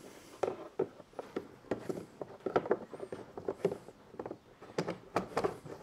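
Irregular small clicks and knocks of a kayak fitting and its screws being handled and fitted back onto the plastic hull.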